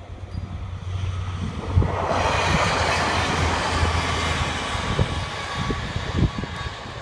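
A multi-car local train passing close by on the main line, its rushing wheel-and-track noise swelling about two seconds in and then fading as it runs away. Low gusts of wind buffet the microphone throughout.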